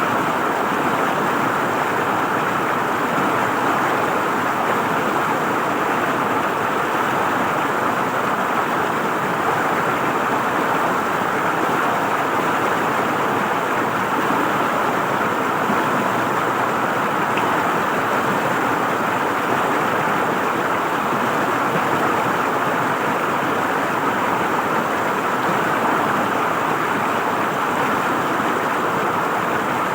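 River water flowing and gurgling over rocks, a steady rushing that stays the same throughout.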